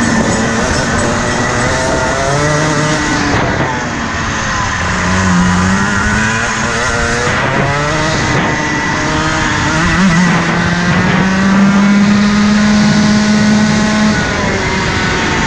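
Rotax Max 125cc two-stroke kart engine revving up and down around the track. The pitch drops as the kart slows about three to four seconds in and again about eight seconds in. It climbs back each time, then holds a high, steady note from about ten to fourteen seconds in before falling off again.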